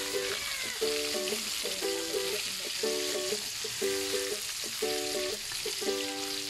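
Coated fish steaks deep-frying in hot oil in a wok, a steady sizzle. Background music of short note clusters about once a second plays over it.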